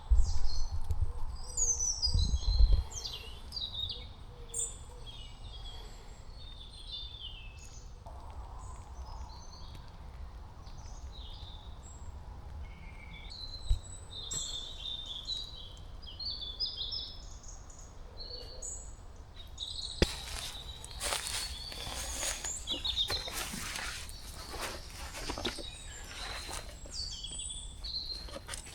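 Morning woodland birdsong: several small birds chirping and trilling. About two-thirds of the way in, a stretch of close rustling and scuffing sets in over the birds.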